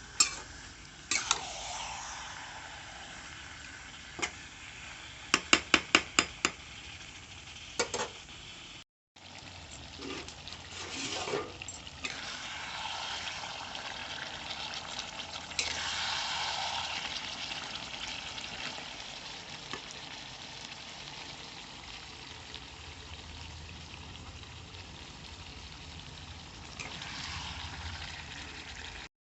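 Chicken curry frying in a pan with a steady sizzle while it is stirred, a spoon or spatula clinking against the pan several times, including a quick run of about six clinks.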